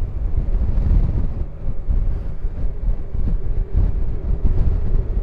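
Wind noise buffeting the microphone on a Honda Gold Wing touring motorcycle moving at road speed, a steady noise heaviest in the low range, mixed with the bike's running and road noise.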